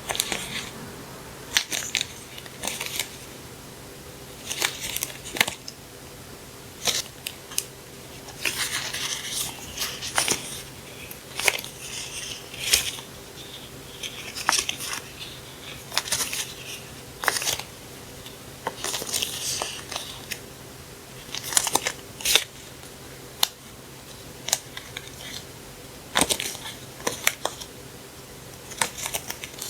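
Paper stationery and plastic packaging handled by hand: scattered sharp taps and clicks with short bursts of rustling and crinkling.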